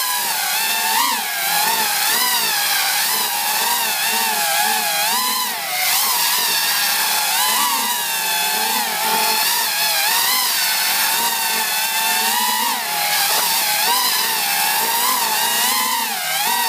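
Racing quadcopter's four brushless motors and propellers whining, heard from on board. The pitch keeps rising and falling as the throttle changes in flight.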